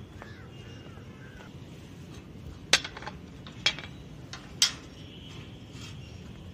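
Wind rumbling on a handheld phone's microphone, with three sharp knocks about a second apart in the middle.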